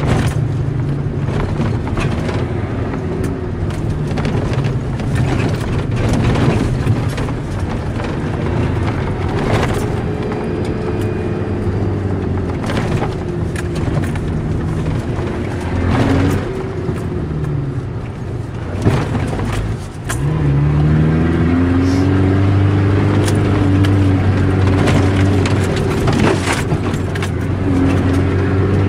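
Mitsubishi Pajero's 2.5-litre diesel engine heard from inside the cabin while driving a rough snowy trail, its note rising and falling, with scattered knocks and rattles from the body over bumps. About twenty seconds in the engine dips briefly, then revs up and holds a higher, steady note.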